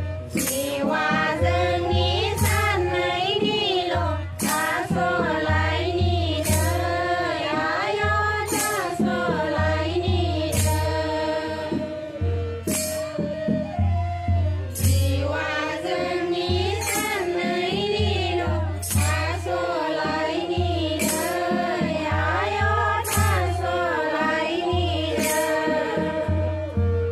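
A mixed group of men and women singing a Bodo Bathou prayer song (aroj) together. The song runs over a pulsing low beat, with a sharp jingling clash about every two seconds.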